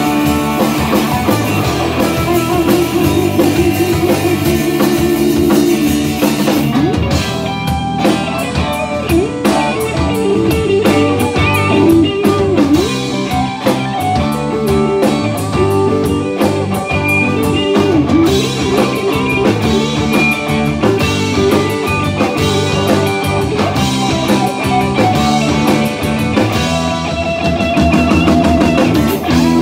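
An instrumental blues-rock band playing live: two electric guitars, electric bass and drum kit. A lead line holds a long note for the first several seconds, then plays phrases with notes bent up and down in pitch.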